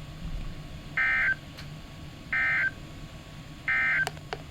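NOAA Weather Radio SAME digital data bursts, the end-of-message code that closes a broadcast: three short, buzzy warbling chirps, evenly spaced a little over a second apart. Two sharp clicks follow near the end.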